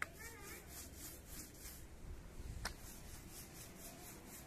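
Paint roller on a long pole rolling wet floor paint over terrace tiles: a rhythmic rubbing swish with each pass of the roller, with a sharp click at the start and another about two and a half seconds in.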